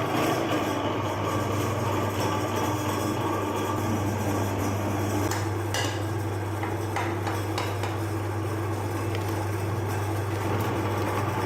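Electric meat grinder running with a steady low hum, with a few sharp clicks and knocks about halfway through.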